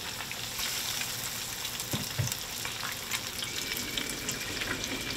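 Breaded fish fillets shallow-frying in hot oil in a pan: a steady sizzle full of small crackles, with two low knocks about two seconds in.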